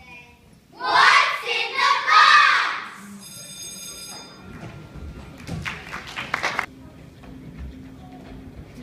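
A loud burst of several overlapping voices lasting about two seconds, followed by a brief high ringing tone, then a short spatter of sharp claps, in a large hall.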